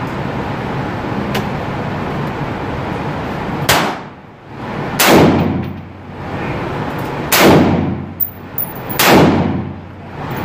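Four gunshots from a firearm fired in an indoor shooting range, unevenly spaced about one and a half to two seconds apart, each with a short echo, over a steady background rumble.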